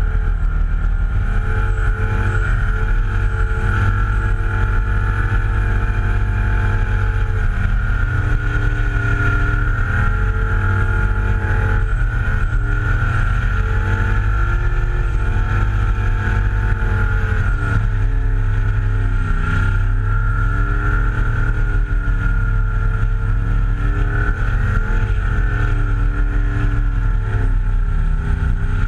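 Shortened Holden Commodore wagon doing a burnout: the engine is held at high revs that waver up and down while the rear tyres spin and smoke, heard from a camera fixed to the car's flank.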